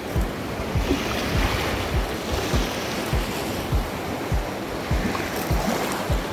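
Gulf of Mexico surf washing in on the beach, a steady rushing noise. Under it runs background music with a regular low beat, a little under two thumps a second.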